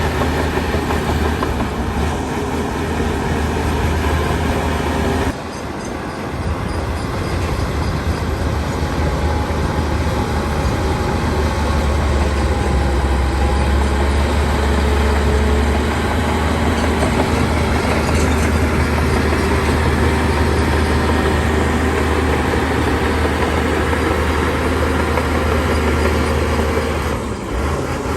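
Heavy earthmoving machinery running: a diesel engine's deep, steady rumble with mechanical noise over it. The sound drops abruptly about five seconds in and dips again near the end.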